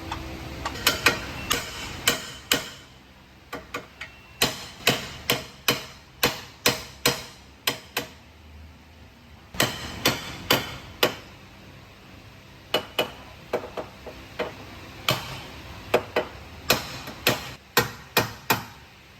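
Repeated hammer blows, sharp separate strikes in runs of several at about one to two a second with short pauses between runs.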